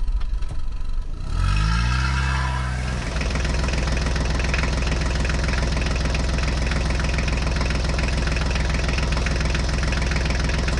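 Tractor engine revving up about two seconds in, then running steadily at an even pitch.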